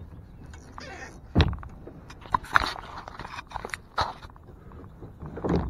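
Irregular knocks and clatter of a small largemouth bass being reeled in and lifted into a kayak on a crankbait, with the sharpest knocks about a second and a half in and again near four seconds.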